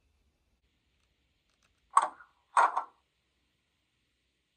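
Recorded cab door of a London Underground battery locomotive (L44) closing, played back as a DCC sound-decoder effect: two sharp clunks about half a second apart, around two seconds in, with a third starting right at the end.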